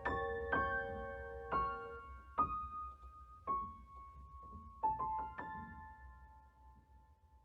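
Background music: a slow piano piece, notes and chords struck a few at a time and left to ring, thinning out and fading away near the end.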